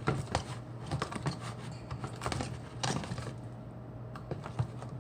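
A fork clicking and scraping against a bowl as slime ingredients are stirred, in quick irregular strokes that thin out to a few taps about three seconds in.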